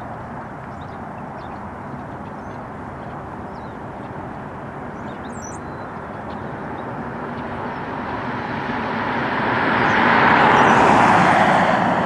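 Steady road traffic noise that swells as a vehicle passes, loudest near the end. Faint, short, high bird calls are heard now and then, with one brief high whistle about halfway through.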